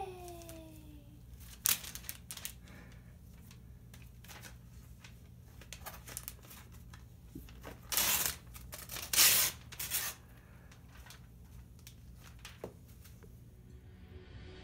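Gift wrapping paper being torn off a cardboard box by hand in short rips: one about two seconds in and a cluster of louder ones around eight to ten seconds in, with faint rustling between. A toddler's short falling vocal sound at the very start.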